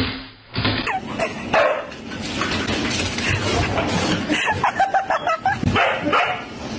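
A thump at the very start, then from about a second in a dog yipping and whining in short, high cries, several in quick succession around the middle.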